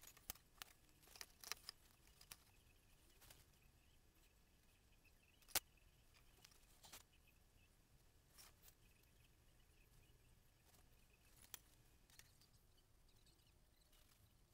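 Near silence broken by scattered light clicks and taps from painting tools and a board being handled on a desktop cutting mat. There is a quick run of taps at first and one sharper click about five and a half seconds in.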